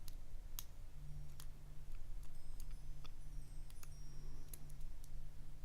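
Light, irregular metallic clicks and ticks of a lock pick working the pins inside a padlock under tension, some with a brief high ping, over a faint steady low hum.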